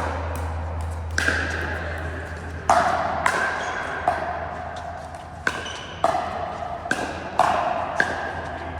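Pickleball paddles striking a hollow plastic ball in a rally, about nine sharp pops at uneven spacing, each ringing on briefly. A steady low hum runs beneath.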